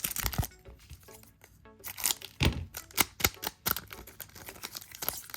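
A foil trading-card booster pack being torn open and crinkled by hand: a run of sharp crackles and tearing sounds, over background music.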